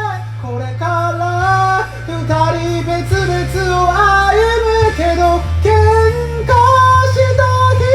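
A solo voice singing a sustained, sliding melody in a high mixed-voice register over a karaoke backing track with a steady low bass.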